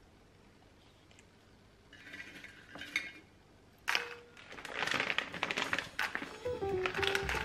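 Dried shiitake mushrooms and dried red dates dropped into a ceramic bowl: light clicks and rattles starting about two seconds in, a sharper click near the middle, then denser clattering. Background music comes in near the end.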